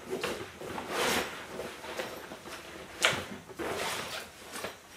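Snowshoes being slid out of a nylon carry bag: fabric rustling and scraping, with a sharp clack about three seconds in as the frames knock.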